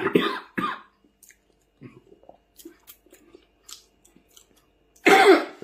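A man chewing a mouthful of steamed potato dipped in soybean paste: soft, wet mouth sounds and small clicks. A few words are heard at the start, and a loud burst of voice comes near the end.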